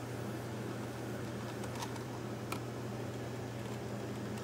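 Steady low hum of room noise, with a few faint clicks and taps as hands handle the camcorder's plastic body and parts.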